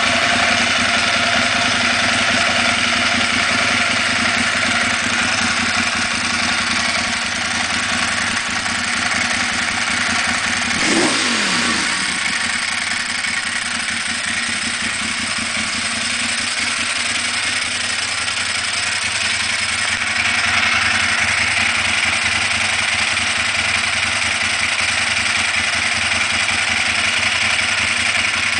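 Ducati Monster S4RS's 998 cc Testastretta L-twin running steadily at idle through a Termignoni full exhaust with its baffles installed, a little louder from about twenty seconds in.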